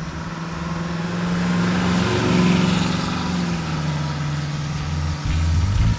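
1955 Chevrolet Bel Air with a fuel-injected LS V8 and Flowmaster dual exhaust driving past. The engine note rises as the car approaches, is loudest about two and a half seconds in, then falls away as it drives off.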